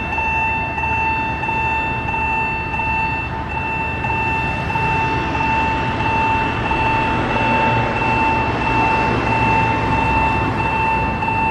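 Railway level-crossing warning bell ringing continuously as a rapidly repeated electronic tone, over the rumble of a train running past on the Alishan Forest Railway.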